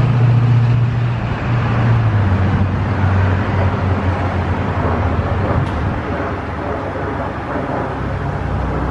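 A steady mechanical hum with a low drone over a haze of running noise. The drone is strongest for the first second or so, then settles a little quieter.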